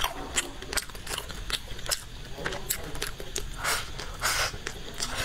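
Close-miked eating sounds: wet mouth clicks and lip smacks of chewing, with two short hissing slurps a little past the middle as leafy greens are sucked in from chopsticks.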